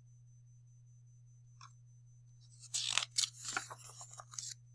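Page of a paperback book being turned by hand: a papery rustle of many quick crackles starting about halfway through and lasting around two seconds.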